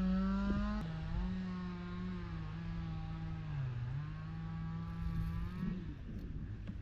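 A motor runs with a steady hum, its pitch wavering slightly, then fades away about six seconds in.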